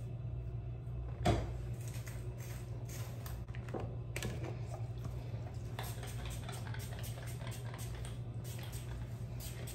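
Small items being handled on a hard surface: light, irregular clicks and taps, with one sharper knock about a second in, over a steady low hum.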